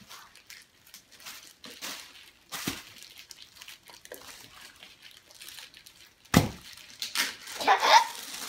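Clear plastic GoPro packaging being handled and worked open, with scattered crinkling and rustling of plastic. A sharp knock comes a little after six seconds in, and a louder stretch of crinkling follows near the end.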